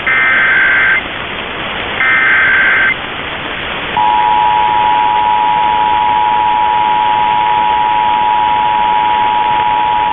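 Emergency Alert System header data bursts, two warbling one-second bursts a second apart, followed about four seconds in by the steady two-tone EAS attention signal, which holds to the end. Together they mark the start of an EAS test alert relayed by a broadcast station. The signal comes through an AM radio receiver, with static hiss and the muffled sound of a narrow band.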